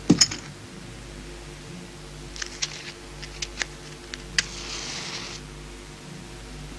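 A sharp knock right at the start, then a few light clicks and taps and a brief rustle as small objects are handled, over a steady low hum.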